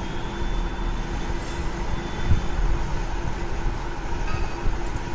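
Steady low background rumble with a constant hum, and one soft low knock a little over two seconds in.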